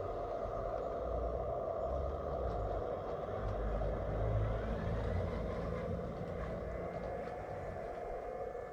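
Radio-controlled model dump truck driving past, its motor and drivetrain running steadily, a little louder about halfway through.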